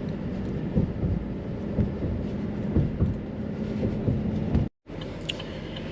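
Road noise inside a moving car: a steady low rumble with a hum and scattered light bumps about once a second.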